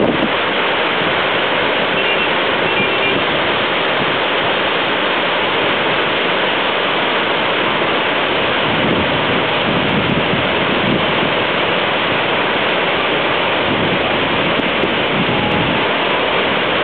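Water spilling over the Godbole-type automatic gates on a dam's overflow, a steady, unbroken rush of falling water.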